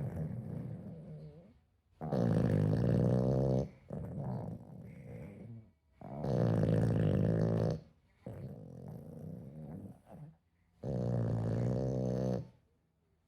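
A small pet snoring in its sleep: three loud, rasping in-breaths about four seconds apart, each lasting about a second and a half, with quieter breaths between them.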